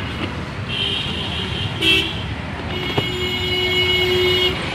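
Road traffic rumbling with vehicle horns honking: a short horn about a second in, another around two seconds, and a longer blast of nearly two seconds near the end. A sharp click about three seconds in.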